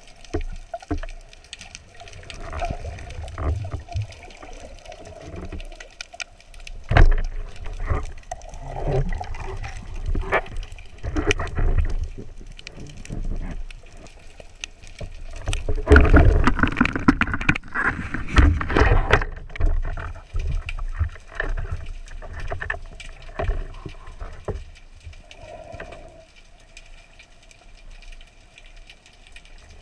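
Water sloshing and gurgling around an underwater camera as a free diver moves, with scattered knocks and a louder stretch of rushing, bubbling water in the middle.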